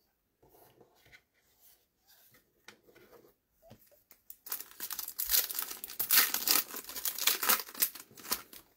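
A trading-card pack's foil wrapper being torn open and crinkled, starting about halfway in after a few seconds of faint handling.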